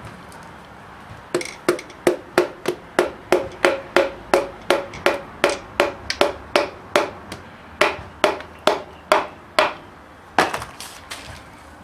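Steady hammering, about two dozen sharp strikes at roughly three a second, each with a short ring. A couple of last taps come shortly after the run stops.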